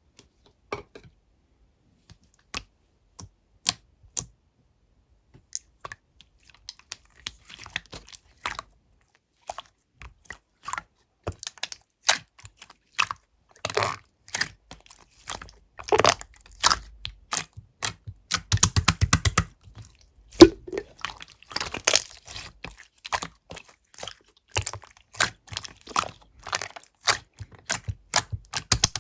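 Slime being squeezed and pressed by hand, giving sharp sticky clicks and pops. These are sparse at first and come thicker as it goes on, with a quick run of rapid pops about two-thirds of the way in.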